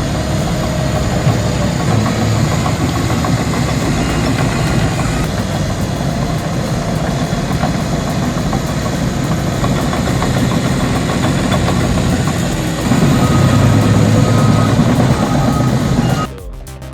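Heavy earthmoving machinery's diesel engine running steadily under load, louder about thirteen seconds in; the sound cuts off abruptly near the end.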